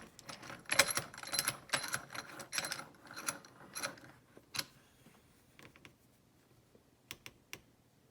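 Metal lock picks and a padlock clinking and rattling as they are handled: a dense run of clicks for about the first four seconds, then a few scattered ticks.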